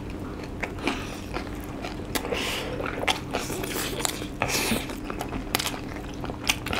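Noodles being slurped and fried chicken being chewed and bitten, with many short wet clicks and smacks and a few brief slurps.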